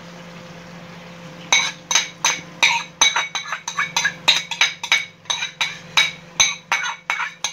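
A metal utensil clinking and scraping against a frying pan as whisked egg is stirred into frying tomato sauce. It is a quick run of ringing clinks, about three a second, starting about a second and a half in, over a steady low hum.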